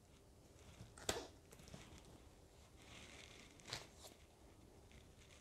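Faint handling of two stacked hardcover books as they are turned in the hands: two short taps about two and a half seconds apart, with light rustling between.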